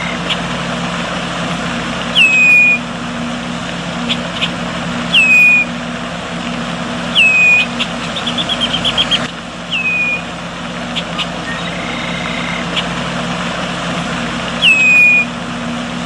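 Eurasian bullfinch giving its soft piping call: five short falling whistles, spaced a few seconds apart. A quick series of about a dozen short ticks comes just past the middle. A steady low hum runs underneath.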